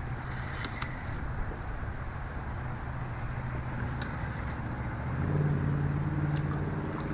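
A distant engine running with a steady low hum, growing louder about five seconds in, with a few faint ticks.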